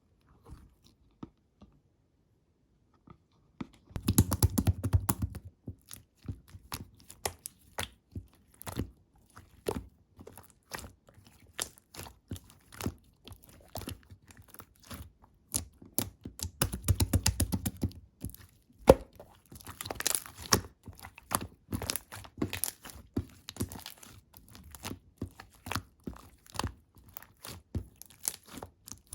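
Slime being squeezed and pressed by hand: a run of sticky clicks and pops that starts after a few seconds of near quiet, with dense crackling flurries about four seconds in and again past the middle.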